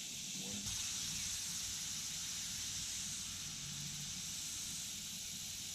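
Steady outdoor background: a constant high hiss with a faint low hum underneath.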